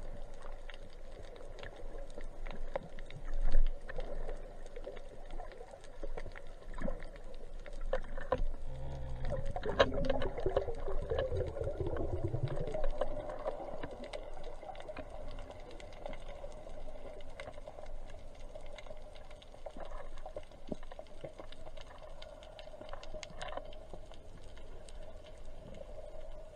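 Underwater ambience picked up by a diving camera: a steady hum with scattered faint clicks and crackle, and a louder low rumble for a few seconds near the middle.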